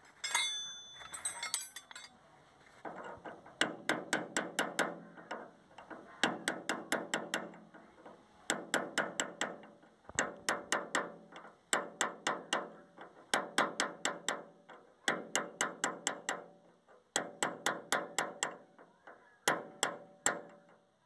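Metal hand tool worked on the steel hub nut of a tractor trolley wheel: a short ringing clink, then repeated bursts of rapid metallic clicks, each about a second long with brief pauses between.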